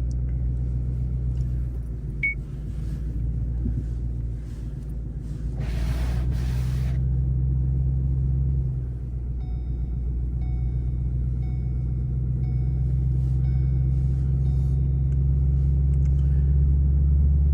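Ford Mustang's engine running with a steady low hum, heard from inside the car. About halfway through, an electronic warning chime beeps about twice a second for some five seconds, and a brief rush of noise comes a little before it.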